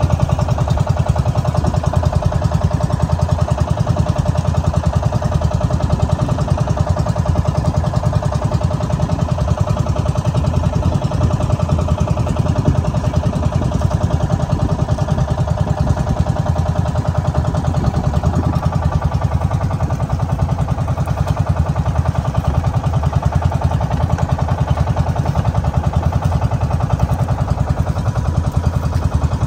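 Boat engine running steadily at an even speed, with a fast regular pulse.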